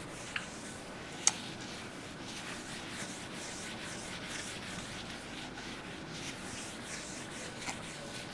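A board being wiped with a duster: repeated quick rubbing strokes, with a sharp tap about a second in.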